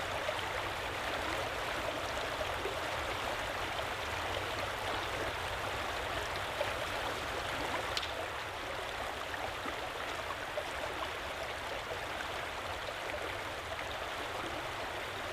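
A creek running steadily, a continuous even rush of flowing water. A single faint click a little past halfway.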